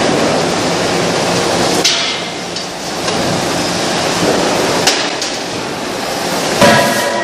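Cross wedge rolling mill running with a steady mechanical din as it rolls a hot billet, broken by sharp metallic clanks about two and five seconds in. Near the end comes a louder metal clank that rings on.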